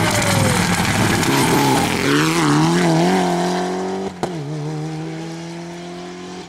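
A Mitsubishi Lancer Evolution rally car's turbocharged four-cylinder engine revving hard as it passes at speed, the pitch dipping and rising through quick gear changes. A short click comes about four seconds in, then a steady engine note that fades as the car pulls away.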